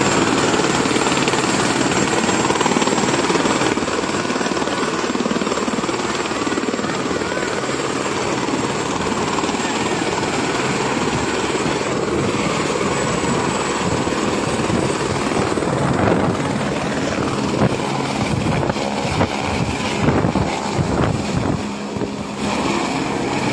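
Floodwater rushing in a loud, steady roar, turning more uneven in the last several seconds.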